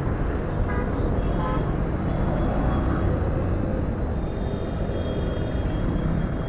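Steady ride noise from a moving motorcycle: wind rumbling over the microphone, with the engine and surrounding road traffic underneath.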